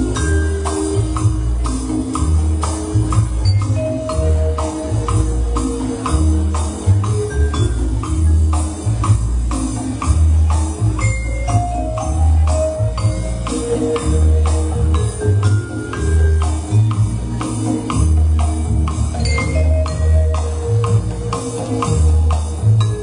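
Popcorn-style soul dance music playing loud, with a steady beat and heavy bass.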